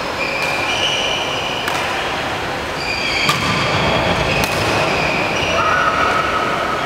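Court shoes squeaking on a wooden sports-hall floor as badminton players move, in several short squeals, with sharp racket hits on the shuttlecock a second or so apart.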